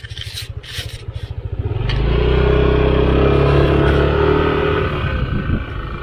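Motorcycle engine ticking over with a few light rattles, then about two seconds in it is throttled up and pulls away, running steadily under power.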